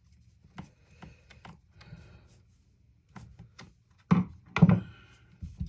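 Tools and chainsaw parts being handled on a workbench: scattered light clicks and taps, then two louder knocks about four seconds in and a smaller one near the end.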